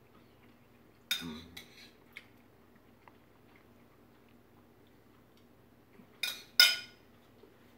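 Fork clinking against a ceramic pasta bowl while eating from it: a few light taps about a second in, then two sharp, ringing clinks near the end.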